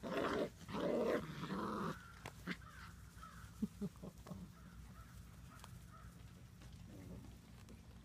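Six-week-old Labrador puppies growling in play, loud and rough for about the first two seconds. Then it goes quieter, with a few short scuffling clicks and faint brief yips.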